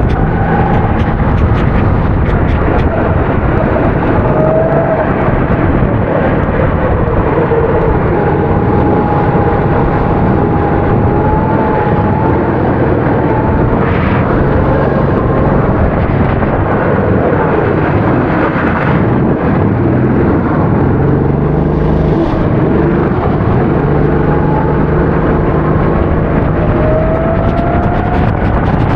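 A 270cc kart engine running hard at racing speed, its pitch repeatedly rising and falling as it accelerates and slows through corners. A dense rushing noise sits under it throughout.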